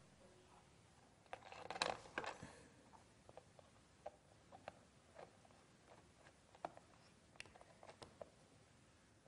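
Faint scattered clicks and a brief rustle from hands fitting a wire to the screw terminals of an electrical test board.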